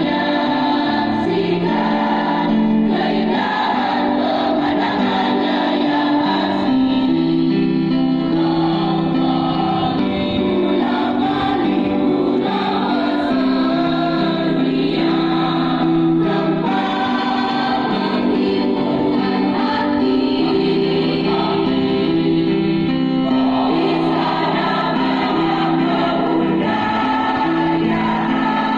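Junior high school choir singing together, holding long sustained notes that change every second or two.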